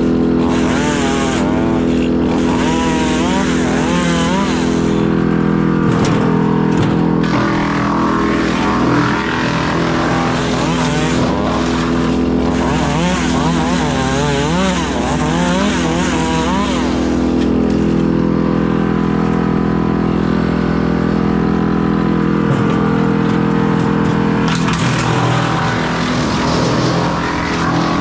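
Tractor-driven PTO wood chipper running at a steady drone while tree limbs are fed through it; the crunching noise of the limbs being chipped comes in spells, with a wavering whine rising and falling over the drone as the chipper takes the load.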